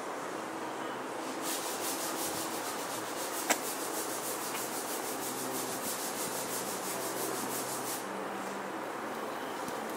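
Quick, even back-and-forth rubbing by hand on a painted car fender, about four to five strokes a second, from about a second and a half in until about two seconds before the end. A single sharp click comes about three and a half seconds in.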